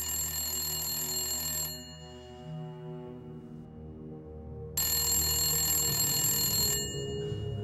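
Rotary desk telephone ringing, two bell rings each about two seconds long with a pause of about three seconds between them, over low droning background music.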